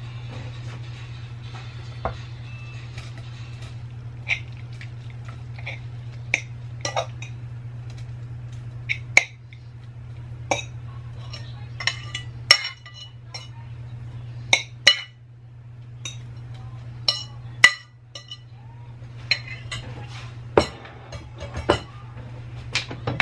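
A metal fork clinking and scraping against a ceramic bowl and a saucepan as shredded chicken is pushed off the bowl, in scattered sharp clicks every second or so, over a steady low hum.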